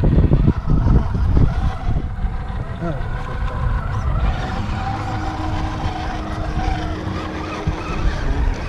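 Electric RC rock crawler with a Hobbywing AXE brushless motor crawling slowly over rock, over a constant low rumble; a faint steady motor whine is held for about three seconds past the middle.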